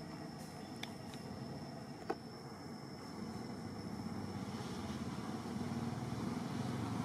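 Low rumble of a motor vehicle engine in the background, growing louder through the second half, with a thin steady high tone above it. There is a single sharp click about two seconds in.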